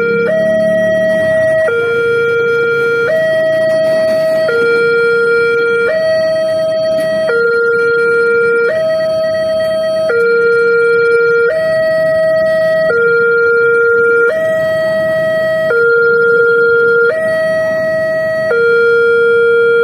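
Railway level-crossing barrier siren sounding a steady two-tone warning. A lower and a higher note alternate about every second and a half, the signal that a train is approaching and the barrier is down.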